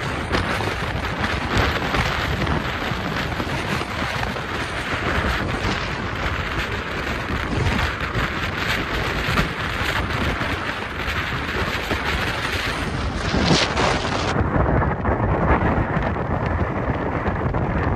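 Wind buffeting the microphone and road noise from a car travelling at freeway speed, a dense steady rush with heavy low rumble. About fourteen seconds in the high hiss drops away and the low rumble carries on.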